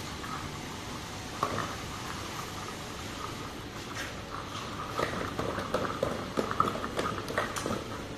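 A bottle turntable feeding machine running, with light plastic jars knocking and clattering against each other and the stainless steel guide rails as the rotating table crowds them toward the outlet, over a steady running hum. The knocks come thicker from about five seconds in.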